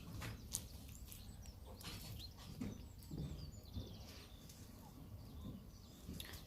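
Faint sticky clicks and squelches of a watery, stretchy slime being handled and swirled by hand.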